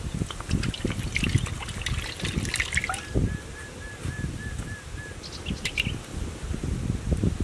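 Water poured in a thin stream into an empty cast-iron wok, trickling and splashing for about the first three seconds. After that a bird repeats a short high note rapidly about nine times.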